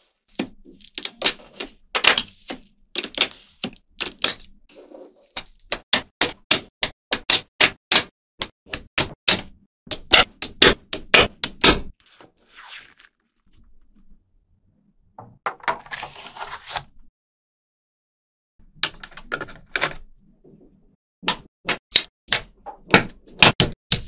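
Small magnetic balls snapping together: a run of sharp clicks, about two a second, as slabs and rows of the balls are joined and pulled apart, with a short rattling slide about two-thirds through and a pause of a couple of seconds before more clicks.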